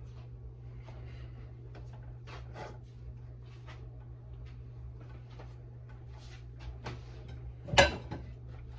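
Light kitchen handling noises, with scattered soft clicks and taps over a steady low hum, and one sharp knock close to eight seconds in.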